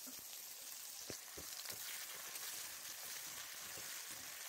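Chopped red onions frying in oil in a steel wok: a faint, steady sizzle with a few small crackles.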